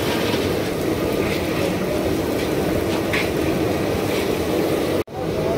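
Steady low rushing and sizzling as a large iron kadhai of boondi fries in hot oil, being stirred with a perforated ladle. The sound cuts out for an instant near the end.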